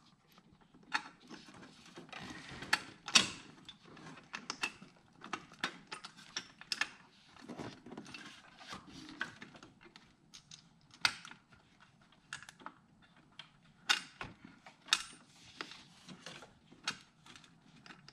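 Faint, irregular small clicks, taps and rattles of a bolt and washer being worked in by hand to start the thread on an alternator cover.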